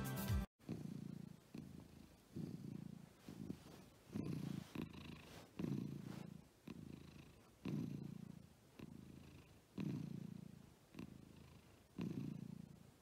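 Scottish Fold cat purring steadily, the purr swelling and fading with each breath a little more than once a second.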